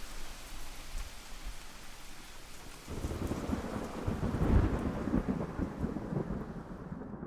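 Steady rain with a low roll of thunder that swells about three seconds in and dies away near the end.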